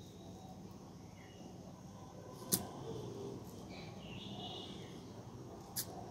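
Low steady outdoor background noise with a few faint, short high chirps. Two sharp clicks stand out, about two and a half seconds in and again near the end.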